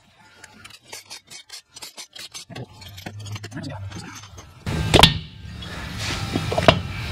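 A ratchet wrench clicking quickly and irregularly as cylinder head bolts are backed out of a Harley Twin Cam engine. Then come two metal clunks, the louder one about five seconds in, over a steady background that starts suddenly.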